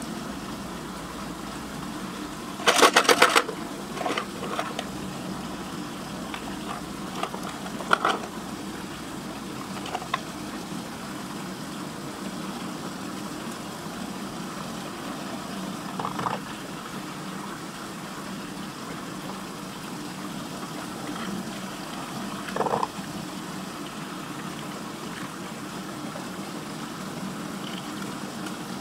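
Water swirling steadily down a whirlpool drain hole, a constant churning rush. About three seconds in comes a loud quick rattle of clicks, and a few shorter knocks and splashes follow, one each around the eighth, sixteenth and twenty-third second.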